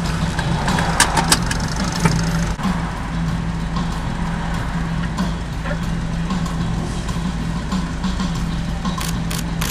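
A Harley-Davidson touring motorcycle's V-twin engine idling steadily amid idling street traffic, with a couple of sharp clicks about a second in.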